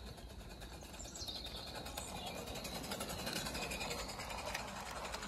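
Gauge 1 model train rolling past, its wheels clicking over the rail joints, getting louder from about a second in. A bird calls briefly about a second in.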